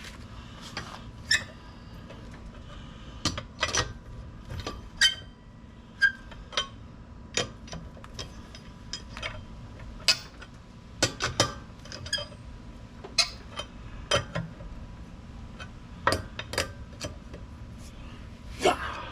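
Steel X-shaped four-way lug wrench clinking and knocking against lug nuts while they are tightened by hand: irregular sharp metallic clicks, some ringing briefly.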